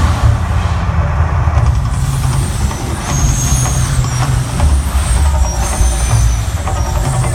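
Mirage volcano show effects: a loud, continuous deep rumble with a steady hiss over it.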